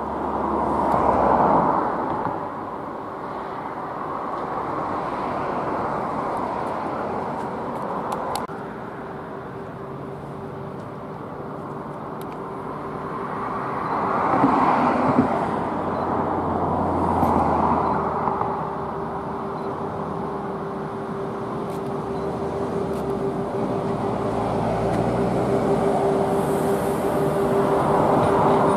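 Electric locomotive with a train of empty lignite hopper wagons approaching and passing underneath. A steady electric hum grows louder as it nears, over a rushing noise that swells and fades several times.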